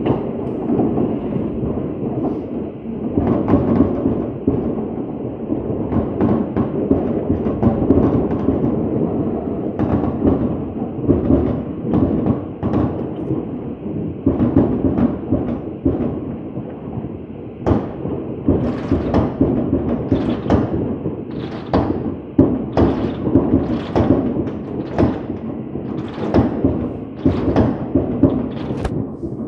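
Fireworks going off in a dense barrage: a continuous rumble of overlapping booms. From about 18 seconds in, sharper separate bangs come roughly every second.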